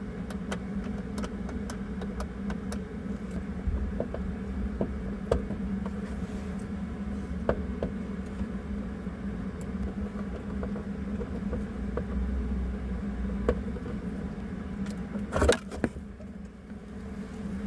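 A steady engine-like hum and low rumble with scattered small clicks and knocks of hand work on car parts, and a louder clatter of knocks about fifteen seconds in.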